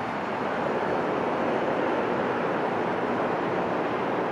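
Twin jet engines of a Boeing 767-300ER freighter at takeoff thrust during the takeoff roll, heard from afar as a steady rushing noise that swells slightly about a second in.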